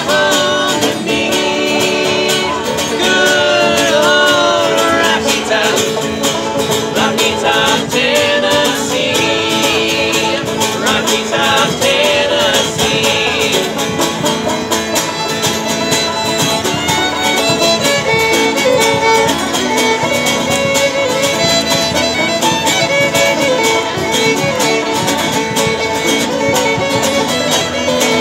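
Acoustic bluegrass trio playing live: bowed fiddle, strummed acoustic guitar and picked banjo.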